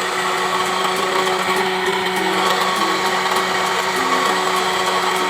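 Electric blender running steadily, its motor whirring as it purées fruit.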